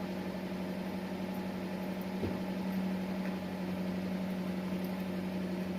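Car engine idling: a steady, even hum.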